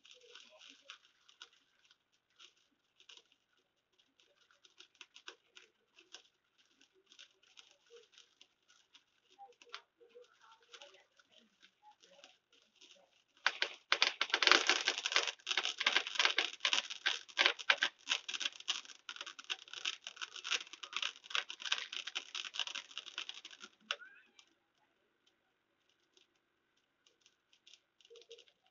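Fireworks crackling: scattered small pops at first, then a dense, louder run of rapid crackling about halfway through that cuts off suddenly.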